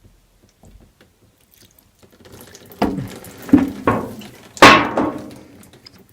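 Liquid degreaser squirted over a greasy part in about five short spurts, splashing and dripping into a bowl beneath; the spurts begin about three seconds in, the loudest near the end.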